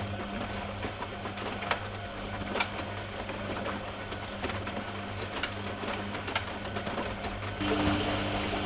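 Privileg 370 S washing machine running, with a steady motor hum and scattered clicks and knocks from inside the drum. Near the end a rush of water starts, with a new steady hum.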